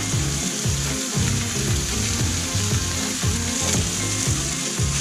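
Shaved steak sizzling steadily on a hot Blackstone flat-top griddle, just laid down, with background music carrying a repeating bass line underneath.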